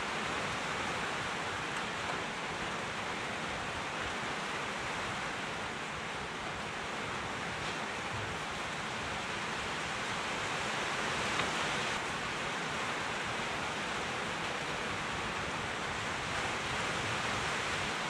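A steady, even rushing noise with no distinct events or voices.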